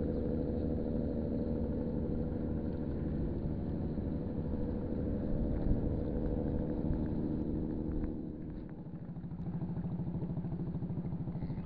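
An engine running steadily nearby, its note changing to a lower, more even pulsing about two-thirds of the way through.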